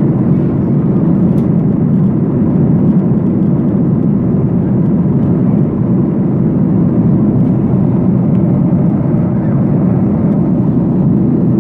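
Steady low rumble of a jet airliner's cabin in flight, engine and airflow noise with no change in level.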